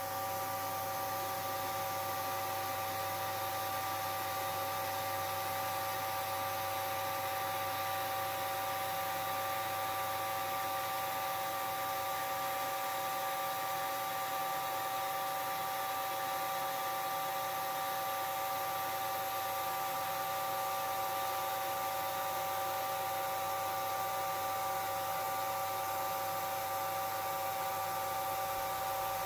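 CNC knee mill face-milling a cast iron casting: a steady hiss of the cutter scraping through the iron as the table feeds the part diagonally, over the steady whine of the spindle and drives.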